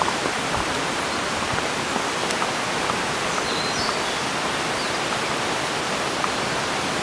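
Steady rushing of running water, like a stream or waterfall, at an even level.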